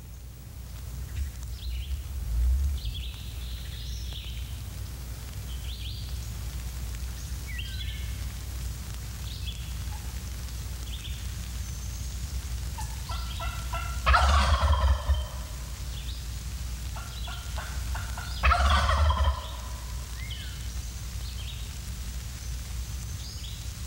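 Wild turkey gobbler gobbling twice, a few seconds apart in the second half, each gobble cutting in on a short run of yelps from a hunter's turkey call. A gobble that answers before the calling finishes is the sign of a tom coming in. Faint songbird chirps between.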